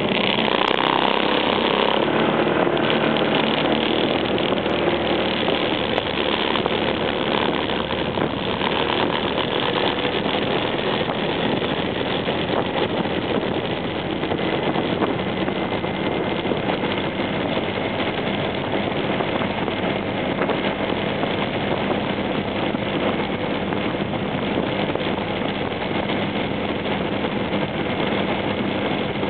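Honda PCX scooter riding at road speed: a steady rush of wind and road noise with the single-cylinder engine's even drone underneath.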